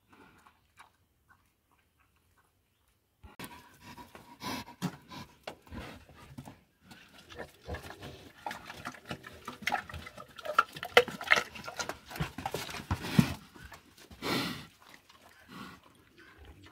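Young pigs at a concrete trough, nosing and rooting in it with irregular grunts, knocks and scraping. The sound starts abruptly about three seconds in.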